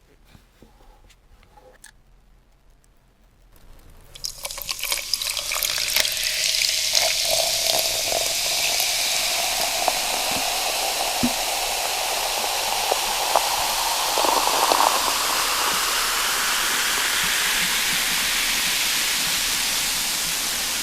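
A drink being poured into a glass in a long steady stream, starting about four seconds in, the pour's note rising slowly in pitch as the glass fills.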